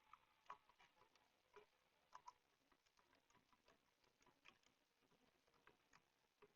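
Near silence with faint, irregular clicks from operating the computer, about nine in all and spread unevenly.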